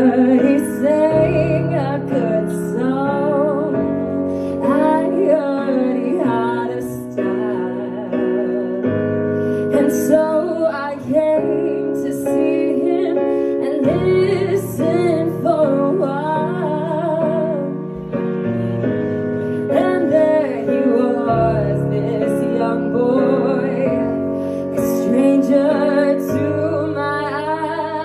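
A woman singing wordless, sliding vocal runs over sustained piano or keyboard chords.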